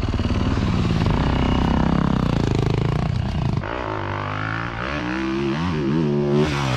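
Dirt bike engine running hard, then quieter from about halfway, its revs rising and falling.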